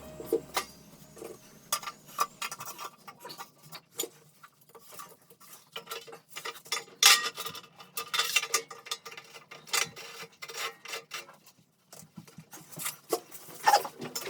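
Irregular clinks, taps and short scrapes of hard objects being handled, with a brief lull about two-thirds of the way through.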